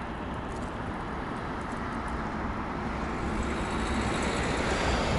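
Street traffic: a road vehicle approaching, its engine and tyre noise a steady rush that grows louder and brighter over the few seconds.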